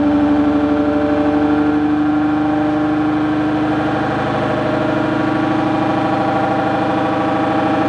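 ReGen-X pulsed DC stepper motor running with a loud, steady buzzing whine made of rapid pulses. Its pitch shifts slightly about two and four seconds in.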